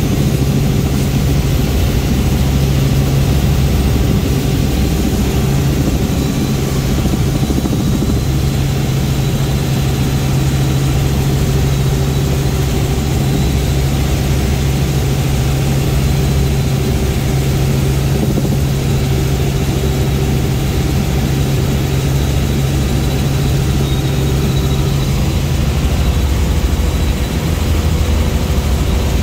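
Helicopter in flight heard from inside the cabin: a loud, steady engine and rotor drone with a low hum.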